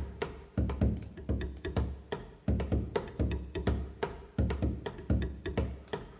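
Minimal house drum loop playing: a kick drum on every beat, about two a second, with short clicky percussion hits scattered between.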